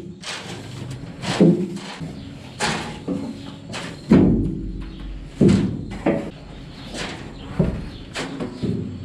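Wooden push broom sweeping leftover feed off the steel augers inside a vertical TMR mixer tub. The bristles scrape and the broom knocks against the metal in sudden strokes about once a second, some of them ringing briefly off the steel.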